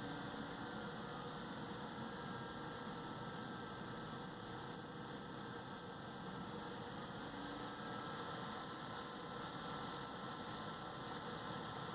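AMD Wraith Spire CPU cooler fan running: a steady whirring hiss with a faint high whine held over it. This is the strange noise the uploader reports from this cooler at BIOS fan settings between 50 and 90.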